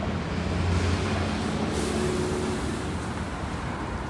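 City street traffic: a steady wash of passing vehicles, with a heavy vehicle's low engine rumble swelling about a second in.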